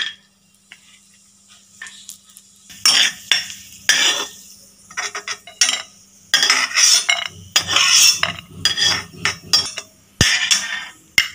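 Metal spoon scraping and clinking against a metal frying pan and a stainless steel plate, in a run of short strokes starting about three seconds in, with a sharp knock near the end. The cashews have been fried in ghee and are being scooped out onto the plate.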